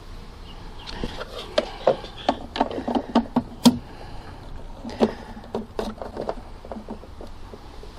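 Irregular plastic clicks and knocks as the bulb holders and wiring loom of a car tail light are handled and pushed into place. The loudest click comes about midway.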